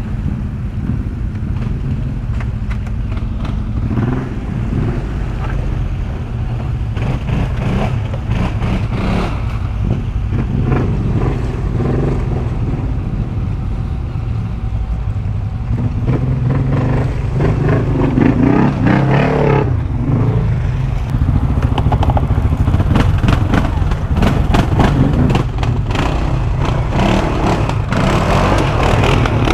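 CFMoto 600 cc quad's engine running at low, varying revs while it crawls over rough off-road ground, with frequent knocks and rattles. It grows somewhat louder in the second half.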